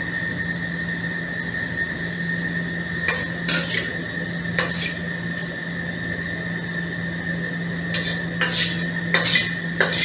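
A metal ladle clanking against a wok: a few scattered knocks, then a quicker run of them near the end. A steady low hum and a high whine run underneath.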